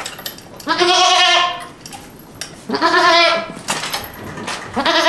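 Boer goat doe bleating three times, each call about a second long with a quavering pitch, as her ear is squeezed in a tattoo clamp.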